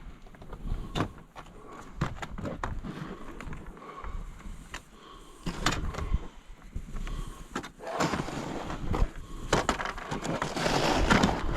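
Irregular scraping and crunching in snow, with sharp knocks scattered throughout, growing louder and denser in the last few seconds.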